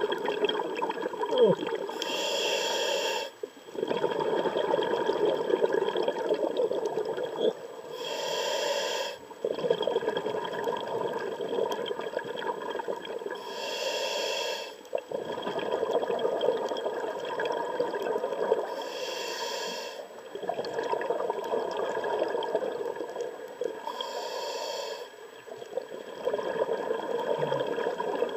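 A scuba diver breathing through a regulator underwater: five short hissing inhalations about every five to six seconds, each followed by a long rush of exhaled bubbles.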